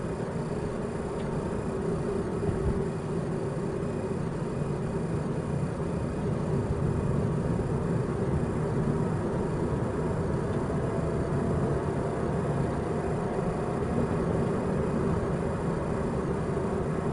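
Steady road and engine noise of a moving car, heard from inside the cabin through a dashcam's built-in microphone.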